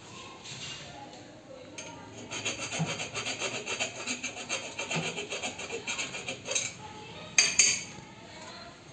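Hand tool scraping on the copper refrigerant pipe at an AC outdoor unit's service valves, in rapid, even strokes of about five a second for several seconds. Near the end come two sharp metallic clicks.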